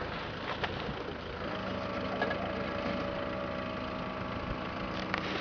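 Land Rover Discovery engine running at steady revs while the truck works up a steep loose gravel slope; the steady engine note settles in about one and a half seconds in.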